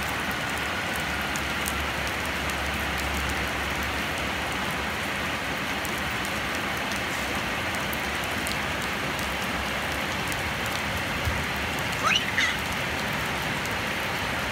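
Steady rain falling, an even hiss, with one short high-pitched sound about twelve seconds in.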